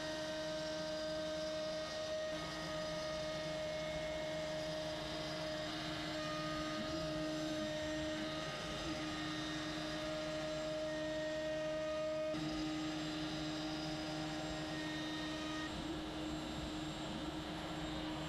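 CNC router spindle running at a steady high speed, its bit cutting a profile into an MDF board, with a steady high hum. The tone steps slightly about twelve seconds in.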